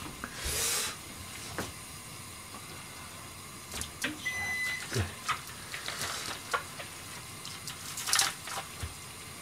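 Cut carrot pieces being put by hand into a pan of oden, with scattered light knocks and clatter as they are handled and set in. There is a short rustling swish near the start and another about eight seconds in.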